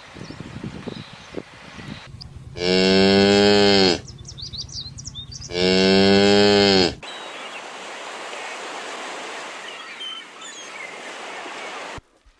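Cow mooing twice, two long calls of over a second each that drop in pitch as they end, followed by a steady background hiss.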